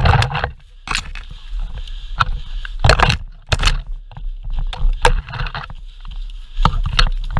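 Irregular sharp knocks and clicks, a dozen or so spaced unevenly, over a steady low rumble: movement and handling noise of a player's worn camera, with footsteps and gear knocking and wind rumble on the microphone.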